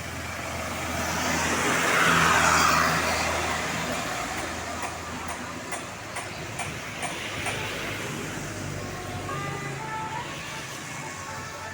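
A road vehicle passing close by, its noise swelling to a peak about two seconds in and then fading away.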